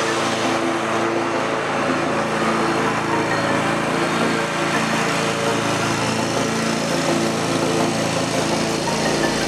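Commercial walk-behind lawn mower's engine running steadily under load as it cuts grass, passing close to the microphone.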